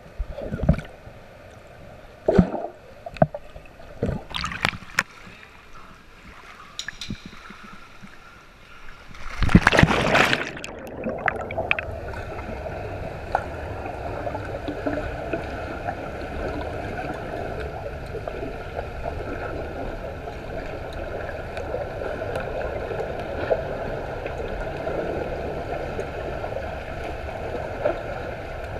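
Muffled underwater sound in a swimming pool: a few scattered knocks at first, then a loud rush of water about ten seconds in, followed by a steady churning of swimmers kicking with fins and stirring up bubbles.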